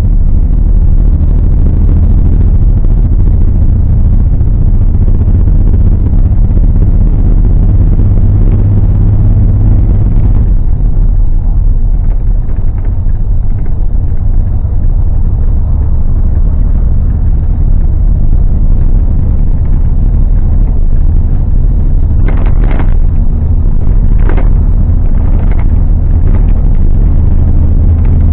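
City bus driving, heard from inside the cabin: a steady, loud low drone of engine and road rumble. A few short knocks or rattles come about three quarters of the way through.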